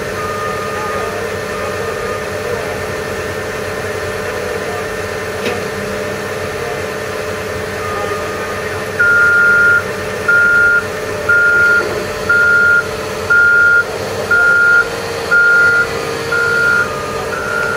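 Wheel loader's diesel engine running steadily. About nine seconds in, a reversing alarm starts beeping about once a second.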